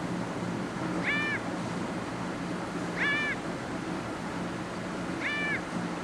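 Recorded house crow call played back: three short, nasal calls about two seconds apart, each rising then falling in pitch. It is an unusual call, one that listeners may doubt is a crow's.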